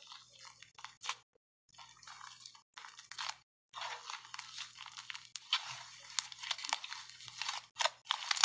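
Thick blue and white slime being squeezed, pulled and folded by hand, giving a dense crackle of small pops in bursts with brief pauses, louder near the end.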